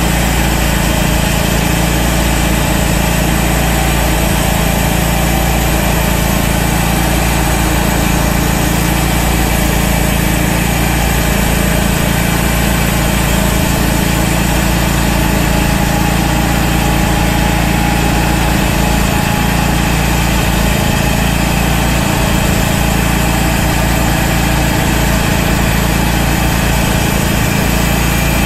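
Portable band sawmill's engine running steadily while the band blade saws along an oak log.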